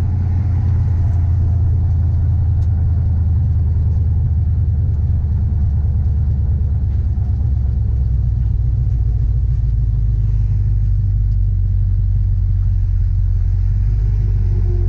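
A truck driving on the road, heard from a camera mounted on its hood: a steady low rumble of engine, tyres and wind. Near the end it slows as it comes up behind stopped traffic.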